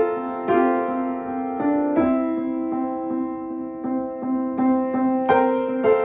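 Slow keyboard music in an electric piano sound, sustained chords over a held low note, with new notes struck every half-second to second or so.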